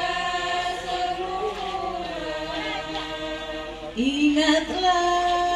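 High voice singing an Islamic sholawat song, holding long drawn-out notes that glide slowly between pitches. A new sung phrase starts about four seconds in.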